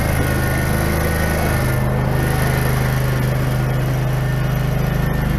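Small petrol engine of a tracked power wheelbarrow running steadily under load as the machine drives down trailer ramps. Its pitch steps up a little about a second and a half in.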